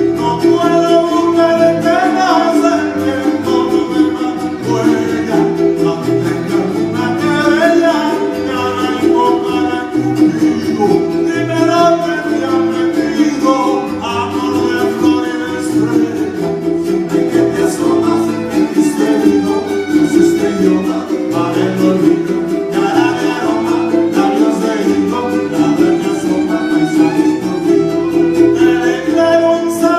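Latin American song: a singing voice over instrumental accompaniment, playing steadily throughout.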